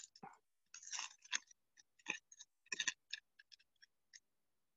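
Trading cards and pack wrapping handled close up: irregular crinkling and soft clicks that stop about four seconds in.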